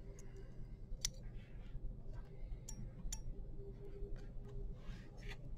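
A few faint, sharp clicks of metal surgical instruments (needle holder and forceps) being handled while suturing, the clearest about a second in, over a steady low hum.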